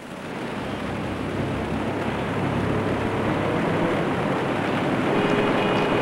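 Steady city street traffic noise that swells in over the first second or so, with a brief horn-like tone about five seconds in.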